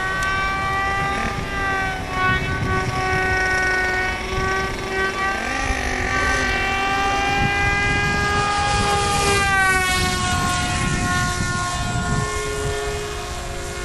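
Electric motor and propeller of a homemade RC plane with a 540-watt motor, whining in flight. The pitch shifts up and down with the throttle and falls clearly about ten seconds in, over a low rumble.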